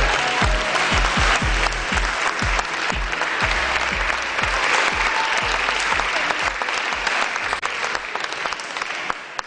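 A crowd applauding, over music with a steady low beat that fades out about eight seconds in.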